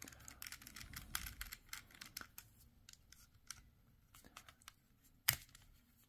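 Small metal clicks and scratches of an Allen key turning the locking screw on the back of a plastic doorbell, along with handling of the casing, as the screw works loose to free the mounting plate. The ticks are thick at first and thin out, with one sharper click a little after five seconds.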